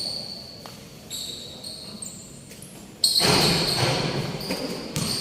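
Basketball game in play on an indoor gym court: a ball bouncing, high squeaks, and a louder burst of crowd noise about three seconds in.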